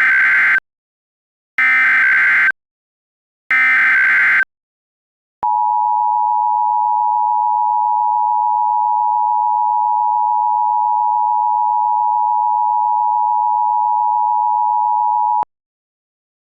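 Emergency Alert System signal opening a tornado warning: three short bursts of SAME header data, a harsh digital screech about a second apart, then the steady two-tone EAS attention signal (853 and 960 Hz) held for about ten seconds before cutting off abruptly.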